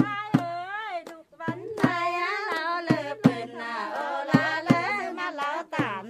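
A woman singing a wavering, ornamented melody in short phrases, with sharp knocks at irregular intervals, about one every half second to a second.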